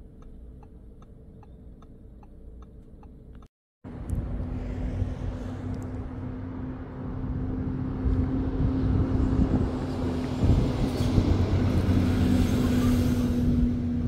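Low rumble with a steady engine hum, typical of a road vehicle running, that starts suddenly about four seconds in and grows louder. Before it comes a quiet stretch with faint, regular ticking.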